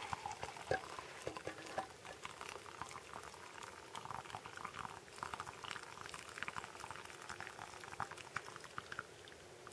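Hot pine-needle tea trickling and dribbling from a camping pot into a steel mug, faint, with many small irregular crackling ticks.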